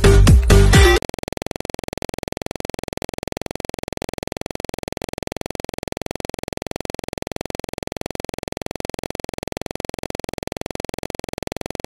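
Electronic dance music that cuts off about a second in, replaced by a steady, rapid, evenly repeating electronic buzz.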